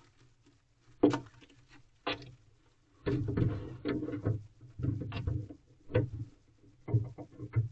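A barn owl moving about inside a wooden nest box: irregular scuffling and scratching of its feet on the box floor, with a sharp knock about a second in and a run of repeated scuffles in the second half.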